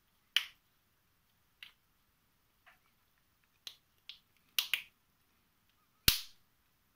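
Small plastic octahedral puzzle pieces clicking as they are fitted together by hand: about eight short, sharp clicks at uneven intervals, two in quick succession past the middle and the loudest near the end.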